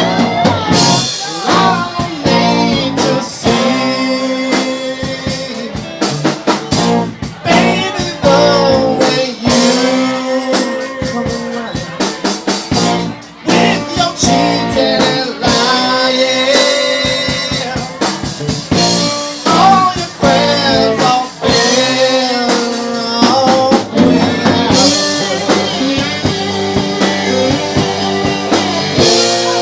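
A band playing a blues song on guitar and drum kit, with a steady drum beat and bending, sliding melody lines.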